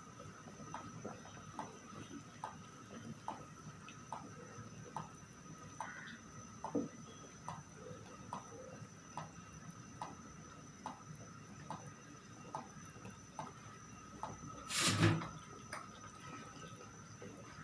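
Fish curry simmering in a pot, thick bubbles popping at a steady pace of a little more than one a second. About fifteen seconds in comes one louder, brief noise.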